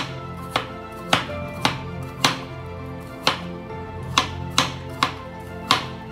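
Kitchen knife slicing bitter melon on a wooden cutting board: about ten sharp chops of the blade hitting the board, over background music.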